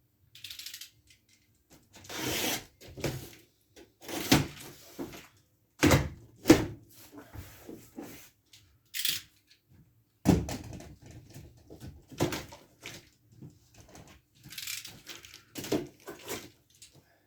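A large cardboard shipping box being opened by hand: irregular tearing and rustling of cardboard and packing tape, broken by several sharp knocks of the box being handled.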